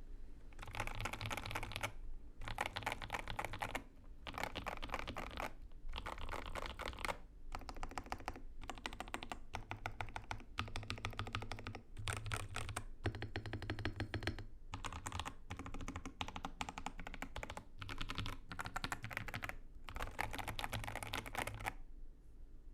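Typing on a DK87 (Customize 87) tenkeyless mechanical keyboard with lubed Akko Ocean Blue tactile switches, case foam, PE foam and tape mod, tuned for a thocky sound. Fast runs of keystrokes come in bursts of one to two seconds with short pauses between them.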